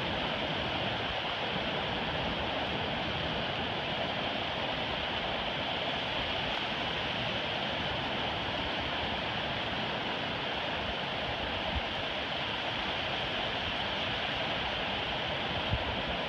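Ocean surf washing in over a flat sand beach: a steady rush of water with no single wave standing out.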